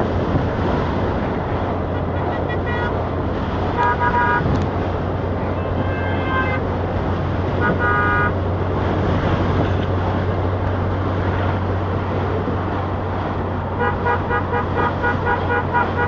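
Steady engine and road drone inside a moving vehicle, with car horns giving short toots about 4, 6 and 8 seconds in, then a rapid run of repeated beeps, about three a second, near the end.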